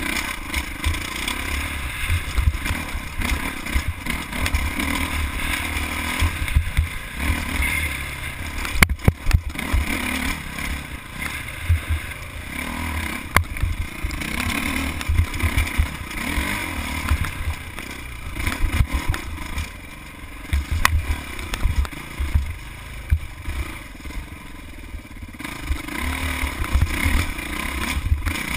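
Dirt bike engine running and revving as the bike climbs rocky single track, with clattering and a few sharp knocks as it rides over rocks.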